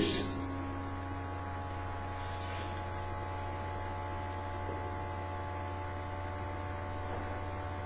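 Steady electrical mains hum with several faint constant tones above it, unchanging throughout.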